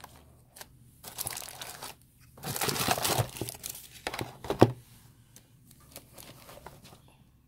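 Clear plastic packaging wrap crinkling and rustling in bursts as it is handled in the box, with one sharp knock about four and a half seconds in.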